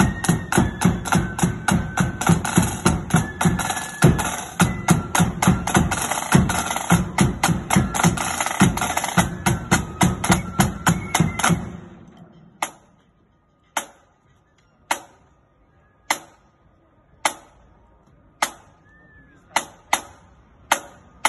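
Marching band's side drums and bass drum playing a fast, dense parade beat that stops about twelve seconds in. After that only single sharp taps come, about one a second.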